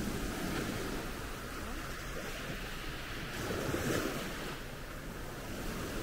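Small waves breaking and washing up a sandy beach, with one surge louder about four seconds in.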